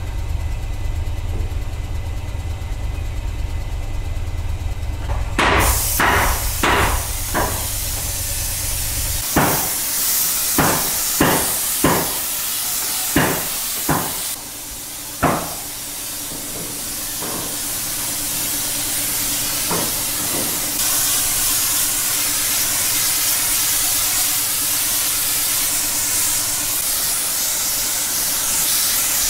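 A low steady engine rumble stops about nine seconds in. Meanwhile a series of about a dozen sharp knocks, like hammer blows, lands over several seconds. A loud steady hiss starts about five seconds in and runs on through the rest.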